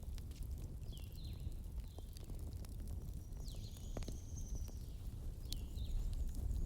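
Wood fire crackling, with sharp scattered pops over a low steady rumble. A bird repeats a short falling chirp every second or so, with one longer high note near the middle.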